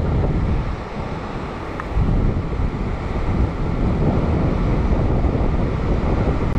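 Wind buffeting the microphone over the wash of waves breaking on a rock ledge, easing for about a second early on and then gusting up again.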